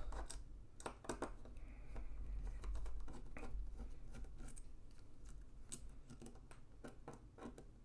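Light scattered clicks and scrapes of a precision Torx screwdriver turning out the small T6 handle screws of a folding knife, with hands handling the knife.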